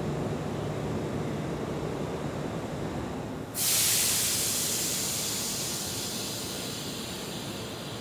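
Low rumble of a train in a station, then about three and a half seconds in a sudden loud hiss of compressed air that fades slowly over the next few seconds: air venting from the pneumatic system of a Kintetsu 26000-series Sakura Liner electric train standing at the platform.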